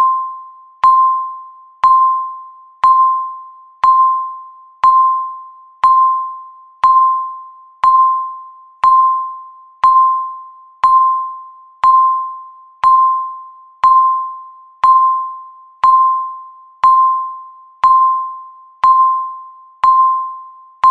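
Countdown timer beep: a single high chime-like tone sounding once a second, each one sharp at the start and fading away before the next.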